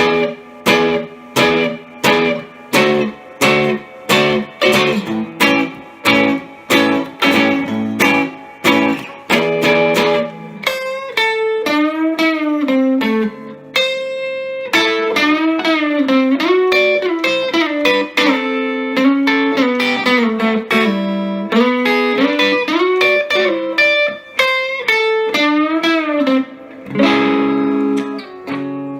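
Epiphone Casino hollow-body electric guitar played through a Vox AC15C1X amp's Top Boost channel. It opens with about ten seconds of short struck chords, roughly two a second, moves to a single-note lead with string bends, and near the end lands on a ringing chord.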